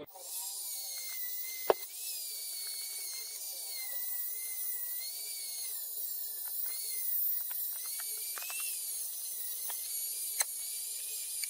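Small high-speed rotary tool whining steadily, its pitch wavering up and down as the load on it changes. Two sharp clicks come through it, one early and one near the end.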